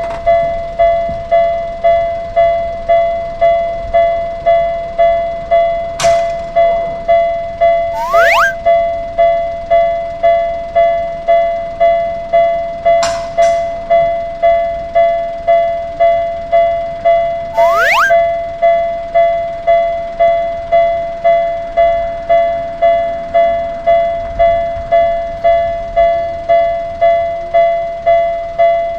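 Japanese railroad-crossing warning bell ringing its steady 'kan-kan' alarm: one bright tone struck over and over at an even pace, each strike quickly dying away. A few times a short rising whistle-like sweep or a sharp click cuts across it.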